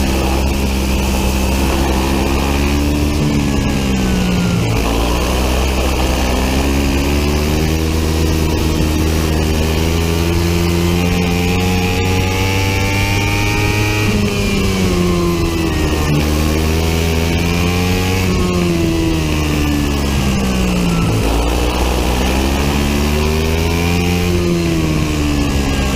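Biland SA250 four-stroke kart engine at full racing revs, heard from on board, its pitch repeatedly climbing as it accelerates and then dropping sharply as the throttle closes, about three times. A steady low rumble runs underneath.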